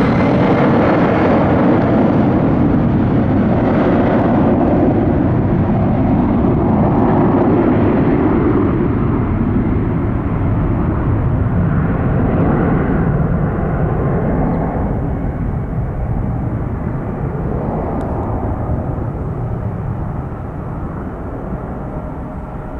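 Boeing 757-300 jet airliner's twin engines at takeoff power: a loud, steady rumble with a high whine that dies away in the first few seconds. From about halfway through, the sound slowly fades and grows duller as the jet climbs away.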